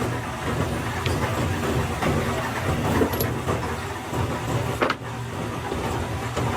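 A motor or machine running steadily with a low hum, with a few sharp clicks and knocks at irregular intervals.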